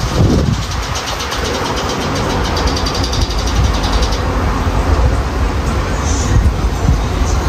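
Strong storm wind buffeting the microphone with a heavy low rumble, over the steady noise of traffic on a highway.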